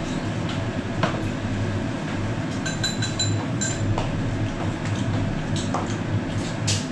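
Steady low machine hum with a few light clinks of chopsticks and bowls over it.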